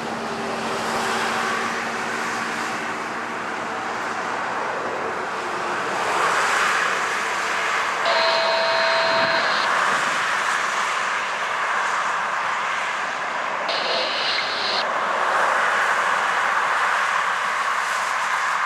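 Road traffic passing close by: school buses and cars driving past, with engine and tyre noise that swells and eases as each goes by. An engine hum fades over the first few seconds, and there is a short high squeal twice, about eight seconds in and again near fourteen seconds.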